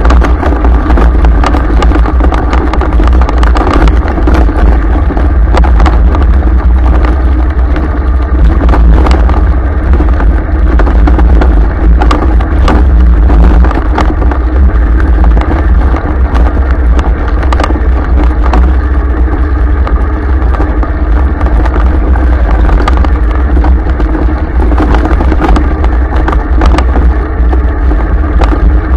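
A vehicle driving over a rough, rutted dirt track. A steady engine drone sits over a constant heavy low rumble, with frequent knocks and rattles from the bumpy ground.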